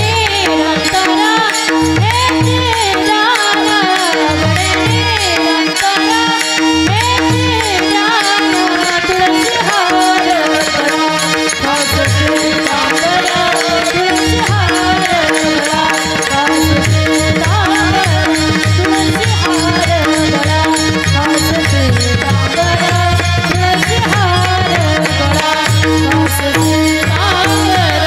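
Marathi kirtan devotional singing (a panchapadi): voices sing over a steady held harmonium note, with a pakhawaj drum beating a rhythm and many pairs of small taal hand cymbals clashing.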